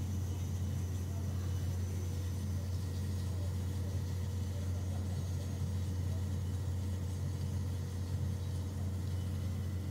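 Diesel generator of a Chubu Electric mobile generator truck running steadily, a constant low drone that does not change. It is feeding electricity directly into the overhead power lines.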